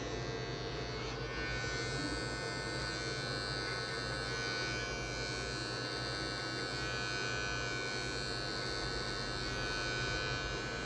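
Electric hair clipper running steadily, with an even buzz, as it trims short hair over a comb to blend a fade.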